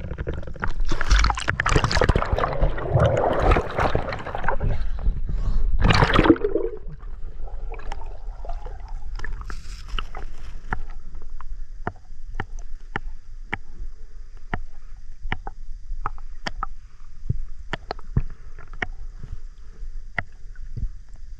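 Water splashing and churning over the camera as a spearfisher goes under the river surface, loudest around six seconds in. It is followed by muffled underwater sound with scattered sharp clicks, one or two a second.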